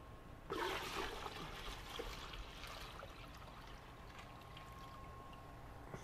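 Water poured from a RYOBI 1-gallon wet/dry vac's tank into a plastic 5-gallon bucket: a gush starting about half a second in, then tapering off to a trickle.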